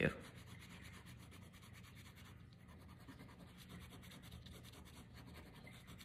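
Fine-tip ink pen scratching faintly on a paper sticker label as it draws, over a low steady hum.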